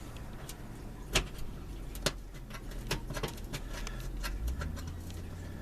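Scattered light metal clicks and taps as screws for an oven heating element are fitted by hand into the metal oven cavity. The two sharpest clicks come about one and two seconds in, over a low steady hum.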